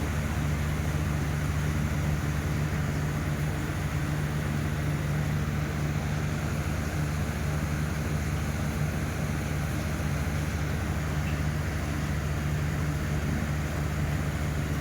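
A steady low mechanical hum with a hiss over it, unchanging throughout.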